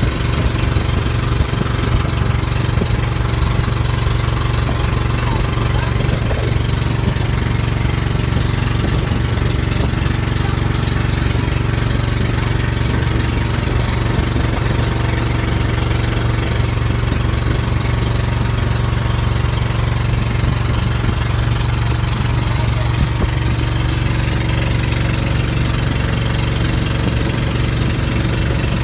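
Inboard engine of a motorised outrigger boat (bangka) running steadily under way, a loud, unbroken drone.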